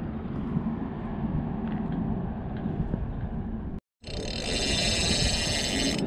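Wind rumbling on the camera microphone. After a brief dropout about four seconds in, a louder, steady, higher hiss with a buzzing edge.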